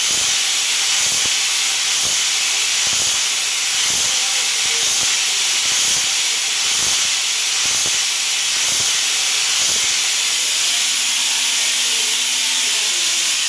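Vertical machining center shaping a tapered keyway in a bore, with the tool stroking in and out about once a second under a steady loud hiss. Near the end a brief steady hum is heard as the machine moves.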